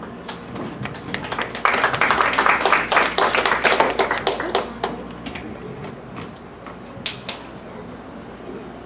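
A small audience clapping, the separate hand claps building about a second and a half in and dying away a few seconds later, with a couple of stray claps near the end: applause for a correctly spelled word.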